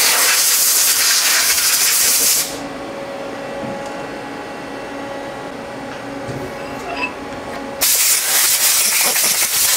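Coolant spraying inside a Mazak Quick Turn CNC lathe, a loud steady hiss that cuts off after about two and a half seconds, leaving the machine's steady hum. Near the end a second loud hiss of the same kind starts and runs for about two seconds.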